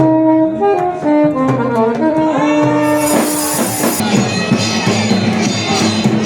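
Sanai (shehnai) playing a melody of held notes with slides between them. About three seconds in a short hissing crash comes in, and the choughada drums thicken under the tune.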